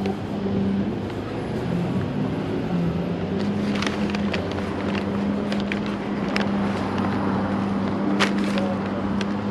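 A steady low engine hum, as of a vehicle idling, with scattered light clicks over it.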